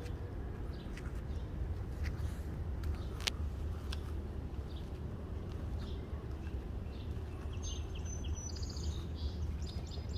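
Birds chirping and calling in short, scattered notes, with a quick run of chirps near the end, over a steady low background rumble.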